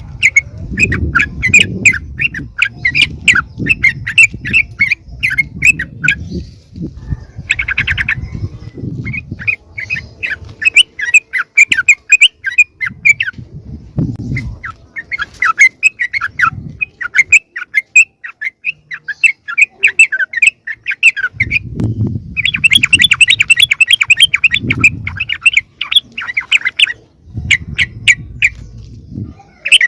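Yellow-vented bulbuls chattering noisily in long runs of rapid, harsh repeated notes, a lure call meant to draw wild bulbuls in. A low rumble sits beneath the calls in several stretches.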